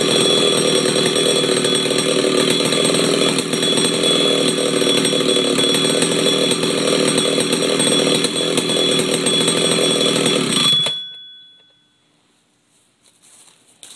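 1977 McCulloch Super Pro 125C two-stroke chainsaw running steadily, then stopping about three-quarters of the way through, the engine sound dying away within about a second.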